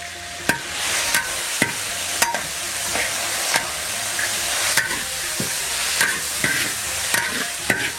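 Spices and chili bean paste stir-frying in hot oil in a wok: a steady sizzle, with a spatula knocking and scraping against the wok about once or twice a second.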